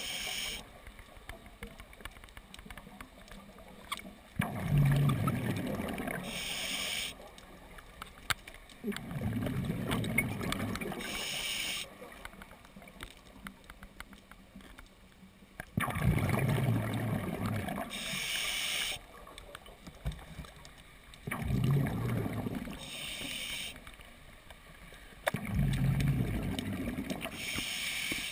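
A scuba diver's open-circuit regulator breathing underwater: about five slow breaths, each a couple of seconds of low bubbling exhaust followed by a short hiss of air through the regulator, every five to seven seconds.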